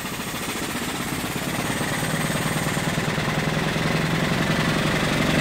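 Bumsted and Chandler high-speed steam engine driving a dynamo, speeding up from about 300 to about 700 RPM as its steam valve is opened wide. Its fast, even beat quickens and grows steadily louder.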